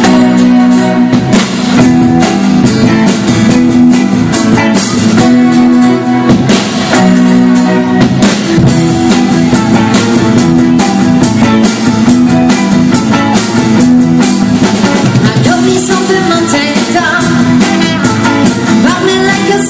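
Live band playing a 1960s–70s style song: electric guitars over a steady drum-kit beat, with singing coming in during the last few seconds.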